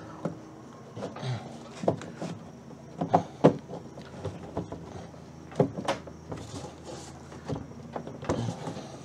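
Irregular metal clunks, clicks and scrapes as a VW Beetle window regulator is worked by hand into place inside the steel door shell, seated up in its channel before the glass goes in.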